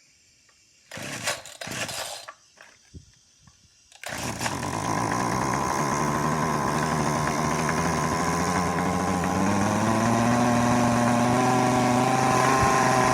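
Small lawn mower engine with no throttle butterfly being started: a couple of short bursts of noise, then it catches about four seconds in and runs wide open on half choke. Its pitch climbs steadily over the last few seconds as it revs higher.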